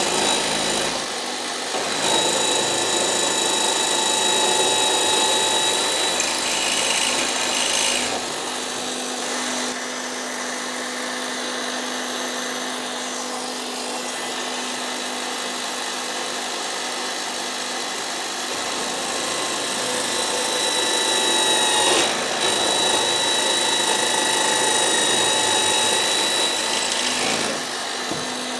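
Benchtop drill press running with a steady motor whine, drilling holes into an aluminium extrusion profile. The cutting is louder for several seconds near the start and again later on, with quieter free running of the spindle in between.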